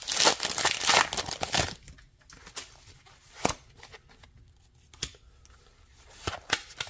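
A foil Pokémon TCG booster pack being torn open, with a burst of crinkling and tearing for the first second and a half or so. After that come a few light, separate clicks from the trading cards being handled.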